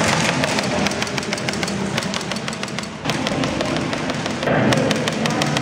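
Airsoft gun firing in rapid bursts of sharp clicks, with a short lull about three seconds in.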